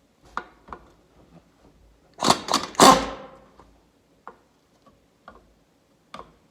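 Metal hand tools clicking and clanking against the seized, rusted bolts of an old hood latch. About two seconds in there is a louder, ringing burst of metal clanking and scraping, with a few single clicks before and after.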